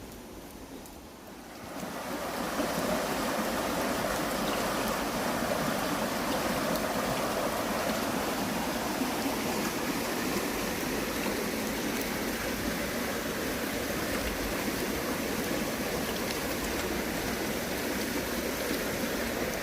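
Heavy rainy-season rain pouring steadily, swelling sharply to a dense downpour about two seconds in.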